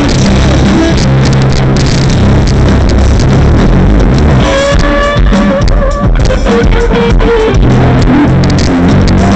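Live band playing loud rock-style music, overloaded and distorted on the recording, with held lead notes in the middle.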